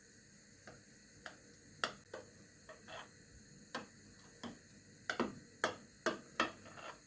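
A series of light, irregular clicks and knocks, about a dozen, coming faster and a little louder in the second half.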